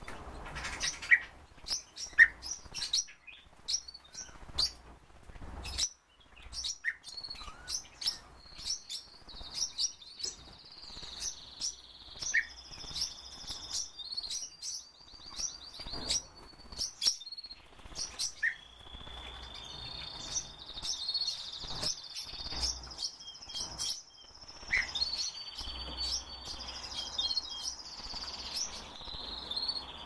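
Small caged songbirds calling: many short, sharp chirps throughout, and from about ten seconds in a high, thin warbling song with a quick rattling trill.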